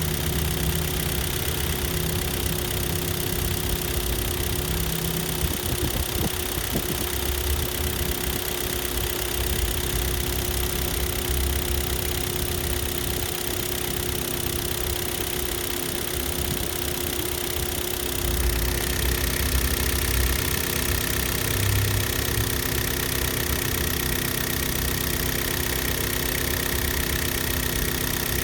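Hyundai/Kia G4KD 2.0-litre inline-four petrol engine idling steadily while warming up. About two-thirds of the way through, a steady higher whine joins the running.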